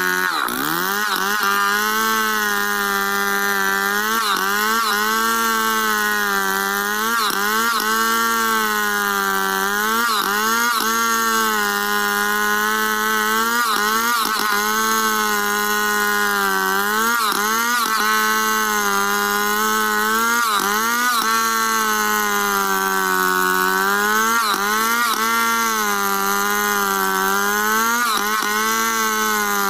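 Stihl two-stroke chainsaw running at high revs under load while ripping lengthwise through a squared log. Its note dips and recovers every second or two as the bar is pushed into the cut. Just after the start there is one deeper dip before it picks up again.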